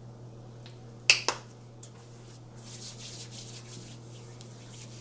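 Two sharp clicks close together about a second in, then hands rubbing body lotion in with a soft, uneven swishing.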